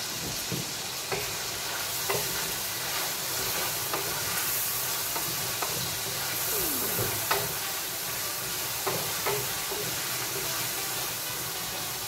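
Food sizzling in hot oil in a pot while being stirred with a metal spatula, with a steady hiss and a dozen or so irregular clinks of the utensil against the pot.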